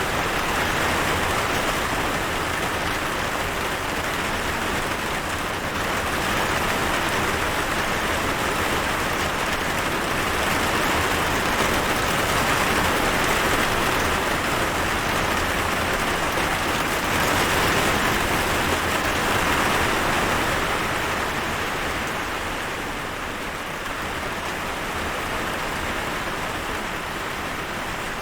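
Steady rain falling: a continuous even hiss that swells gently and eases slightly near the end.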